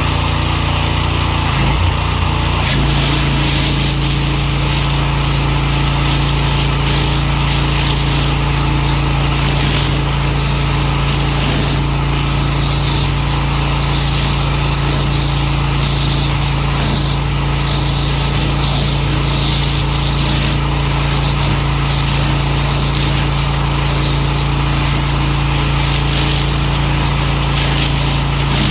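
Pressure washer running steadily, with a constant low hum and its spray jet hissing in regular swells about once a second as it sweeps across a surface.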